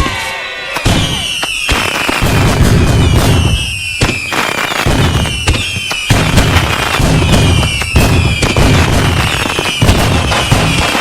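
A dense barrage of fireworks: whistling rockets giving a falling whistle about once a second, over rapid sharp bangs and crackling and a steady low booming. The barrage builds up about a second in and keeps going without a break.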